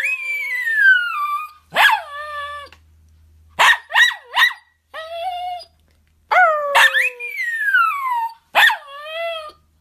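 Poodle howling and yelping: a string of pitched calls that slide down in pitch, some drawn out for a second or two, with three short yelps in quick succession about four seconds in.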